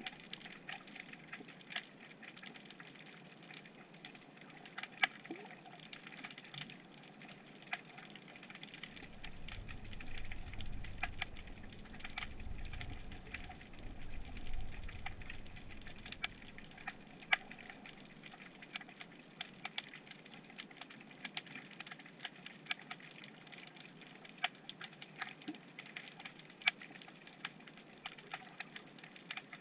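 Underwater crackle of irregular sharp clicks, typical of snapping shrimp, picked up by a camera submerged in shallow coastal seawater. A low rumble swells in about nine seconds in and fades out by about sixteen seconds.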